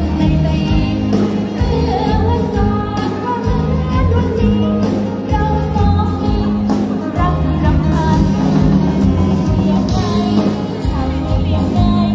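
Loud music with singing and a steady beat.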